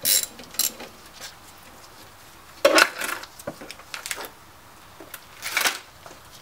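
Scattered metal clinks and knocks as a brake caliper and its hose bolt are handled, the loudest about three seconds in, with a short scrape a little before the end.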